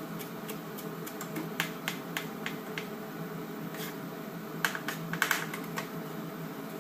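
Kitchen knife chopping fresh coriander leaves finely on a cutting board: irregular light taps of the blade on the board, with a quicker run of taps about five seconds in.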